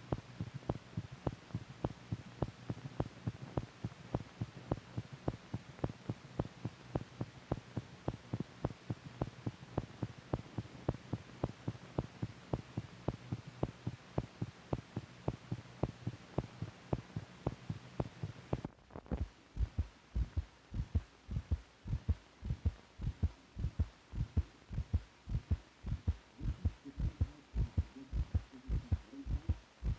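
Recorded heartbeat: quick, regular beats over a steady hum. Two-thirds of the way in, the hum stops and the beats become louder and deeper.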